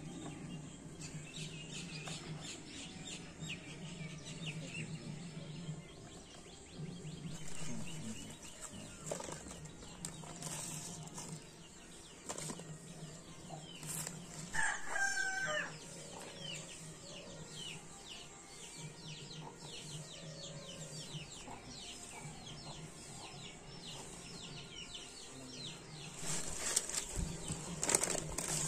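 Chickens flapping their wings and clucking, with one longer pitched chicken call about fifteen seconds in.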